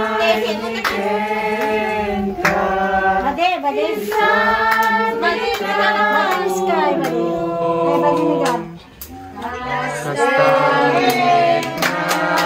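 Voices singing over music with long held bass notes, with hands clapping, most of it near the end; the sound drops briefly about nine seconds in.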